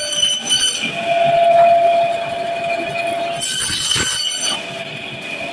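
Meat band saw running with a steady high whine, its blade squealing as it cuts crosswise through a whole large fish. A stronger, lower squeal rises about a second in and holds for a couple of seconds. A harsh scraping stretch follows near four seconds, as the cut passes the head.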